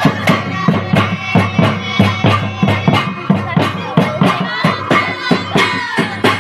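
Santali folk dance music played live: hand-beaten barrel drums such as the tumdak' keep a fast, even rhythm of about three strong strokes a second, with a high, wavering melody line above.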